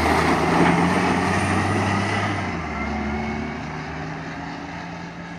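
Caterpillar 730 articulated dump truck's diesel engine pulling under load as the truck drives away over gravel, fading steadily. The low engine note shifts about halfway through as the truck starts up the stockpile.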